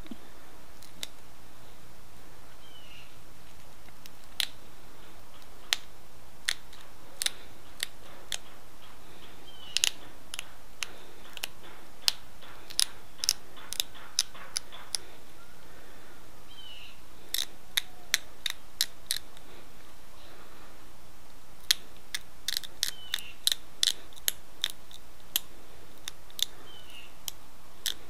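Edwards chert arrowhead being worked with an antler tool: sharp, irregular clicks as small flakes snap off its edge, often in quick clusters of several.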